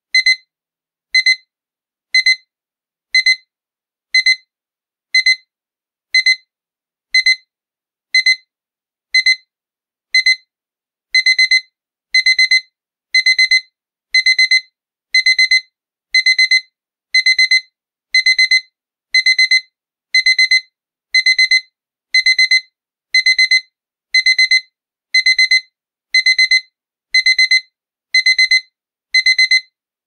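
Electronic alarm clock beeping: short high-pitched beeps about once a second. About eleven seconds in, each beep becomes a quick run of several beeps, the alarm's faster stage.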